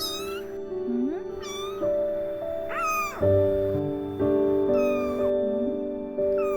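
Korean Shorthair kitten giving short, high meows, about five of them spaced a second or more apart, over soft background music.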